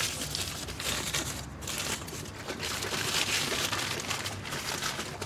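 Crumpled white paper food wrapper crinkling and rustling as it is handled and peeled back from the food.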